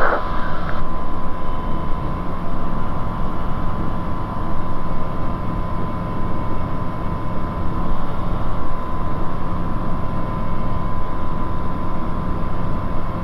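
Bristell light aircraft's engine and propeller running steadily, heard inside the cabin, with a steady high whine under the engine noise.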